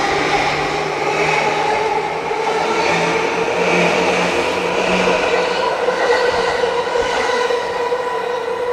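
E235-series Yamanote Line electric train running, its motors whining in several steady tones that rise slightly as it gathers speed, over wheel-on-rail running noise.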